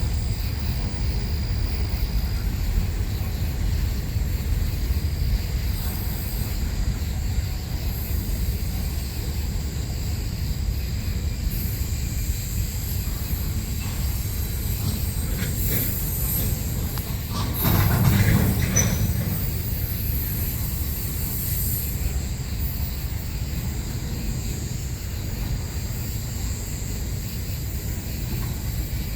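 Freight train rolling by, a steady rumble of steel wheels on the rails with a high wheel squeal in the middle stretch. There is a brief louder surge about two-thirds of the way through.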